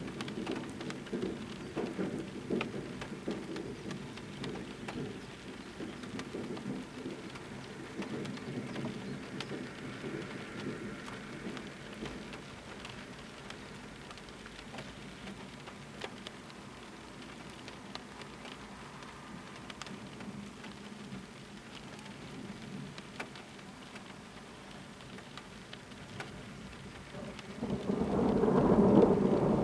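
Thunderstorm: steady rain, with low thunder rumbling through the first several seconds and fading, then a loud roll of thunder breaking in near the end.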